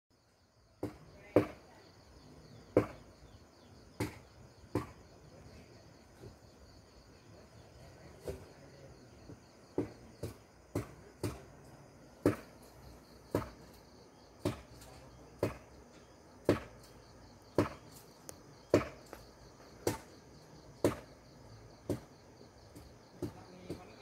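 A steady high chirring of insects, with sharp knocks of something being struck about once a second, each with a short ringing tail. The knocks are the loudest sound.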